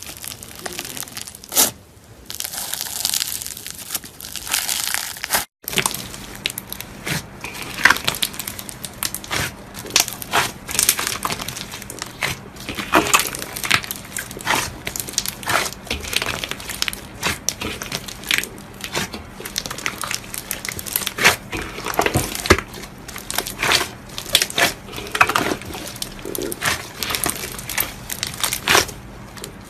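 Slime being squeezed and pressed by hand: crinkling at first, then, after a brief break about five seconds in, a long run of sharp crackles and pops.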